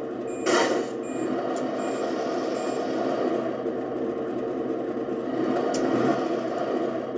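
Simulated truck engine sound from a G.T.Power sound and light pro module, played through the RC truck's small loudspeaker while the wheels are driven from the transmitter. It runs steadily, with a short hiss about half a second in.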